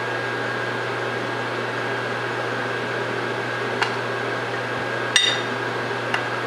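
Metal spoon clinking against a ceramic bowl three times while scooping rice, the second clink, a little past halfway, the loudest and briefly ringing. A steady hum runs underneath.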